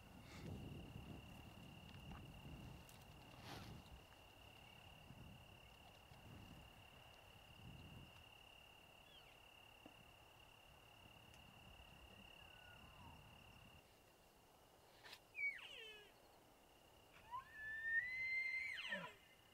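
Bull elk bugling: a short falling whistle about fifteen seconds in, then a fuller, louder bugle near the end that climbs to a high held whistle and drops away low. Under the first two-thirds a steady high insect trill runs, then stops.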